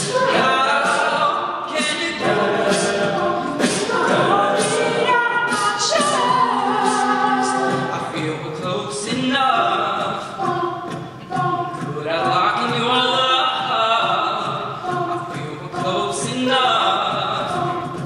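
All-male a cappella group singing a pop song: a lead voice over close backing harmonies, with beatboxed vocal percussion keeping a steady beat.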